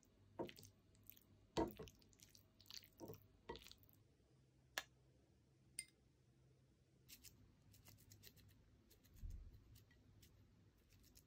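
Irregular soft clicks and light taps, as of small objects being handled, over quiet room tone. The loudest click comes about a second and a half in, and there is a soft low thump near the end.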